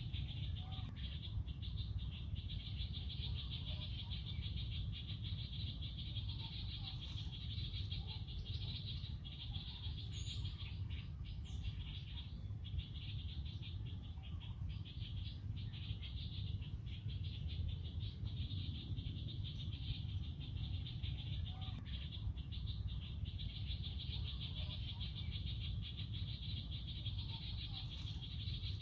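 Steady, unbroken high-pitched insect chorus in forest, over a constant low rumble, with a few brief high chirps.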